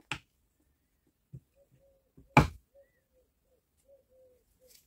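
Clicks and knocks from the plastic housing and wiring of a Milwaukee M18 circular saw being handled: a sharp click at the start, a few light knocks, and one loud knock about halfway through.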